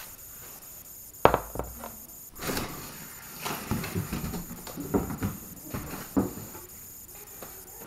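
Handling noise as a pair of plastic Camoplast snowmobile skis is pulled from a cardboard box and set on a wooden floor: a sharp knock about a second in, then scattered rustling, scraping and lighter knocks.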